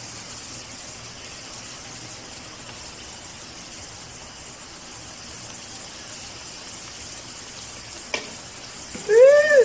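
Hot oil sizzling steadily as wontons deep-fry in an electric skillet. A single click comes about eight seconds in, and near the end there is a loud, short high-pitched cry that rises and falls in pitch.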